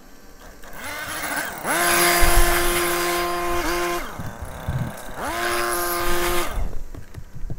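Handheld leaf blower run in two bursts. Each burst spins up with a rising whine that settles into a steady whine and rush of air for a second or two, then stops.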